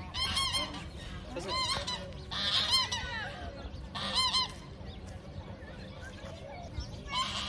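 Domestic geese honking in bursts of quick repeated calls, four bursts close together, then a quieter spell and another burst near the end.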